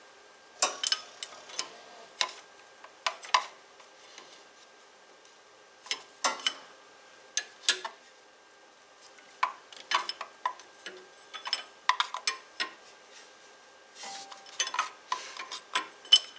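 A wrench clinking on the metal injector fuel-line nuts of a diesel tractor engine as they are cracked loose to bleed air from the fuel system. Irregular sharp metallic clicks come singly and in quick clusters, busiest near the end.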